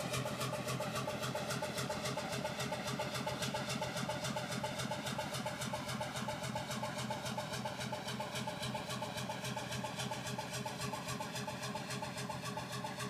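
Alfa semi-diesel (hot-bulb) engine of an old fishing boat thumping along steadily and running well, a fast even beat of several strokes a second. It slowly grows a little fainter as the boat moves off.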